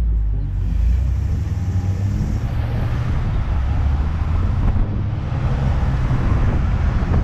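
A car driving along, heard from the vehicle: a steady low rumble of engine and road noise, with a hiss of wind and tyre noise that grows louder about half a second in.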